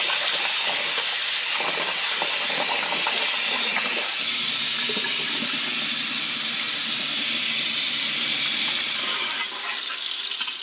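Onions frying in oil in a pot: a steady, loud sizzle that eases off slightly near the end.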